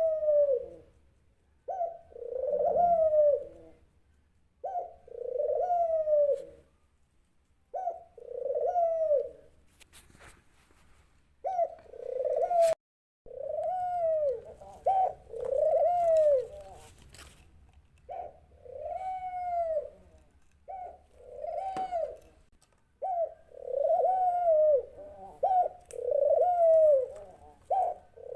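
Dove cooing over and over: each coo is a short low note that rises and falls, repeated every two to three seconds, with a brief pause about ten seconds in.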